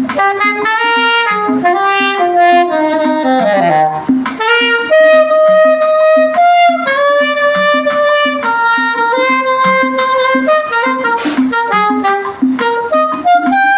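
Saxophone playing a slow hymn melody, holding long notes with a few short runs and a falling glide, over a backing track with a steady beat.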